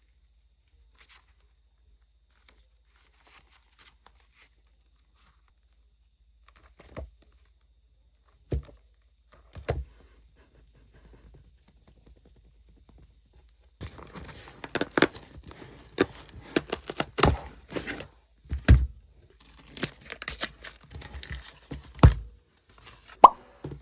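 A few soft knocks, then from about halfway through, plastic packaging being torn open and crinkled by hand, with irregular crackles and sharp snaps.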